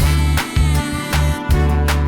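Background music: an upbeat track with a steady beat, a pulsing bass line and sliding melodic notes.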